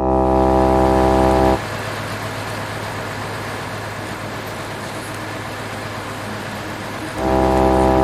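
Truck horn sounding in two long, steady blasts, one at the start and one near the end, each about a second and a half long, with a steady rushing noise in between.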